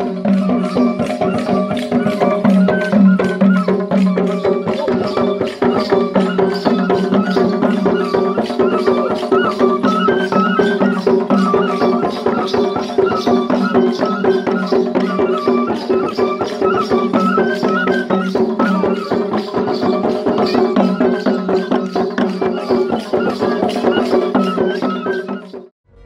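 Background music: a fast, even percussion beat over steady held low tones, with a short melodic figure repeating above. It stops abruptly near the end.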